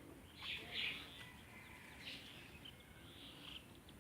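Cow being milked by hand: a few soft, hissing squirts of milk into a pail, spaced irregularly, over faint outdoor background.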